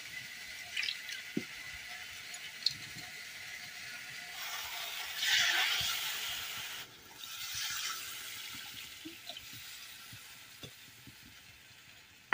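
Hot iron kadai sizzling, louder about four and a half seconds in as the turmeric liquid hits the frying tomatoes. The sizzle then slowly dies away while a spatula stirs the pan.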